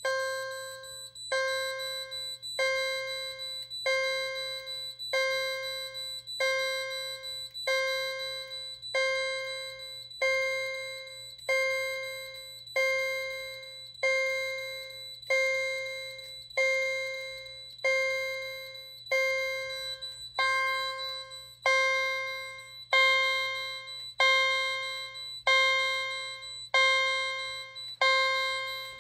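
Fire alarm chime striking a single ringing stroke about every 1.3 seconds, each stroke fading before the next: the panel is in alarm and sounding its evacuation signal.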